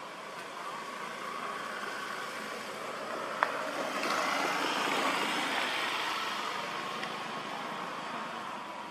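A vehicle passing by, its rushing road noise swelling to a peak about five seconds in and then slowly fading. A single sharp click sounds just before the swell.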